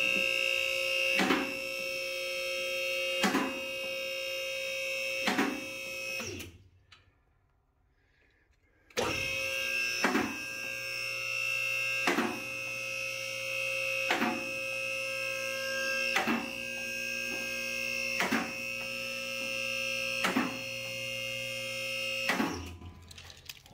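Car lift's electric hydraulic pump motor running as the car is raised. The lift's safety locks click past their catches about every two seconds. The motor stops for about two seconds a third of the way in, then starts again.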